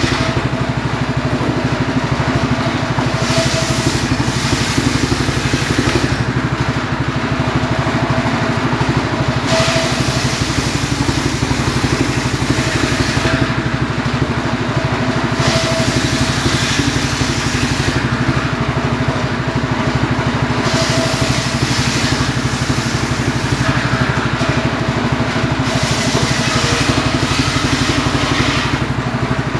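Homemade engine-driven circular saw running steadily while its blade rips lengthwise through firewood logs, a cut of a few seconds about every four to five seconds, with the engine running on between cuts.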